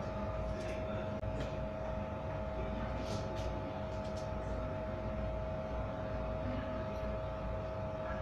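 Steady mechanical hum with one strong constant tone and a low rumble underneath, with a few faint clicks of a knife against a steel plate about three seconds in.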